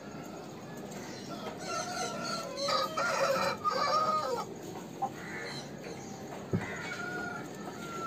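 Aseel rooster crowing once, a drawn-out call about three seconds in, with shorter calls around it and one more near the end; a single sharp knock about six and a half seconds in.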